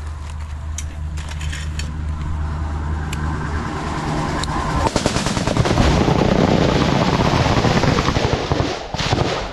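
A heavy military truck's engine droning, growing louder as it approaches, then from about five seconds in rapid automatic gunfire from several weapons, machine guns and rifles opening fire together at close range.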